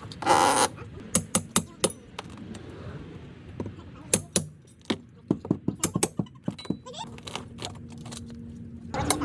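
Scattered sharp clicks and knocks, with a short loud burst of noise about half a second in and a faint steady hum near the end.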